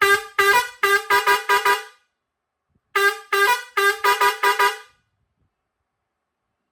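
Two-pipe steel-trumpet digital air horn (Pioneairs 217S) playing a quick run of about seven short blasts alternating between two pitches. The phrase is repeated once after a pause of about a second.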